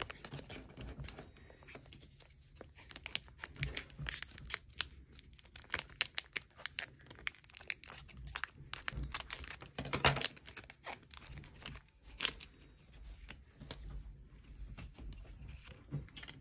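Scissors snipping through a foil trading-card booster pack and the foil wrapper crinkling as it is handled and opened, a run of many short crackles and snips, loudest about ten and twelve seconds in.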